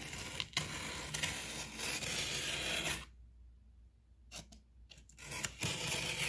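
Utility knife slicing through packing tape along a cardboard box seam: a scratchy tearing rasp for about three seconds, a pause with a few light clicks, then more cutting near the end.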